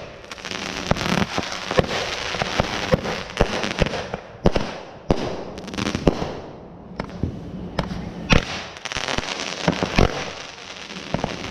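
Consumer aerial fireworks going off in quick succession: many sharp bangs over dense crackling. There is a brief lull about two-thirds of the way through, then another crackling volley with several loud reports.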